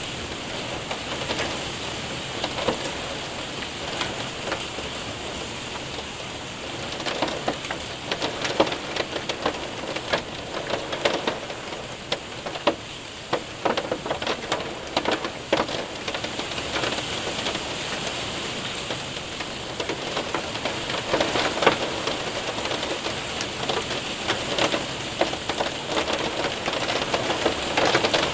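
Hail and rain hitting a window and roof: a steady hiss of rain with sharp clicks and taps of hailstones scattered through it, coming thicker about a third of the way in and again near the end.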